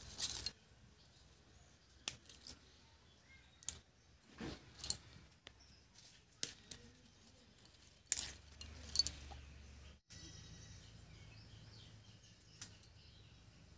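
Cauliflower leaves and their stalks being snapped off the head by hand: irregular crisp snaps and crackles, one every second or two.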